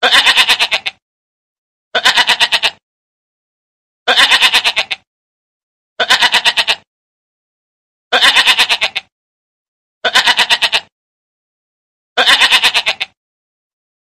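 A goat bleating, one quavering bleat of under a second repeated seven times at an even two-second spacing, with complete silence between calls.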